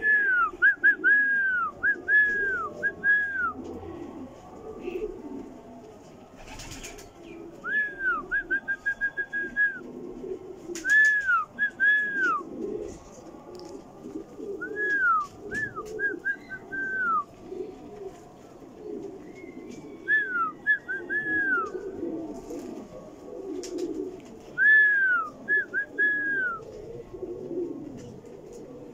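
Norwich Cropper pigeons cooing low and continuously. A higher-pitched bird call cuts in every few seconds in quick series of three to six short notes, and these series are the loudest sound.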